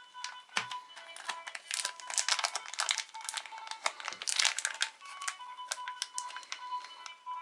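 A plastic foil sticker packet crinkling as it is handled and turned in the hands, with a dense run of crackles in the middle, over light background music.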